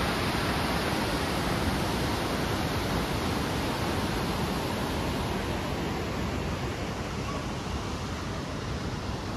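Steady rushing of river water in the gorge below: an even hiss spread across all pitches, fading slightly toward the end.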